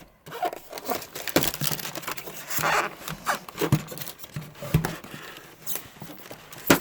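Packaging being opened by hand: tearing, rustling and scraping with sharp clicks and knocks, as a box is pried open.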